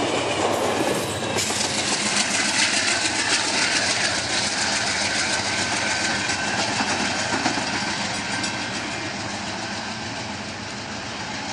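Amtrak passenger train rolling past and moving away: steel wheels clicking steadily over the rails under a loud rolling rumble, fading as the train recedes.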